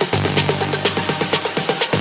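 Electronic dance music with a fast, steady beat over a sustained bass line.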